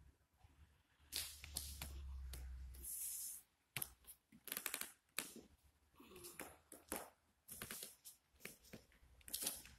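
Faint, irregular rustles and scuffs of body movement in a yoga backbend as the hands move down a wall onto a yoga mat, with a low rumble for about two seconds starting a second in.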